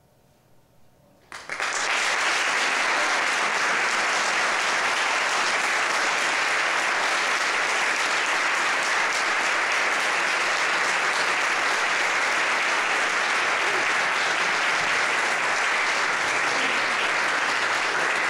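Audience applauding, breaking out suddenly about a second in after a brief hush and then holding steady.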